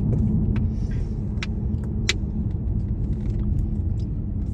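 Steady low rumble of a car's engine and tyres heard from inside the moving car, with a few faint sharp clicks scattered through it.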